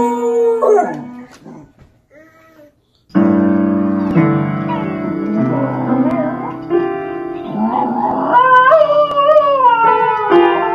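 Dogs howling along with a piano. A short howl with piano notes fades out within the first second or two. After a gap, piano chords sound from about three seconds in while a second dog, pawing at the keys, howls over them in a wavering pitch that slides up and down and is loudest near the end.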